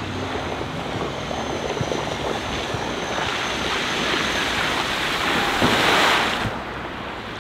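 Steady rushing noise of wind and water, swelling over a few seconds and cutting off suddenly about a second before the end.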